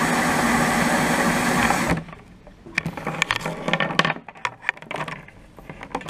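Cordless drill driving a benchtop copper-wire stripping machine, running steadily with a low hum while insulated wire is fed through its rollers, then stopping abruptly about two seconds in. Scattered light clicks and knocks follow as the wire and machine are handled.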